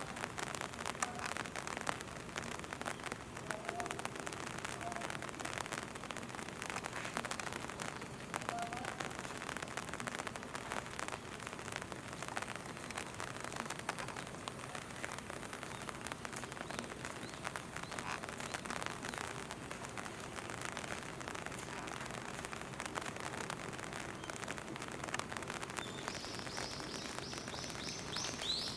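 Steady rain pattering, a dense stream of small drop ticks. Near the end a bird chirps several times in quick succession.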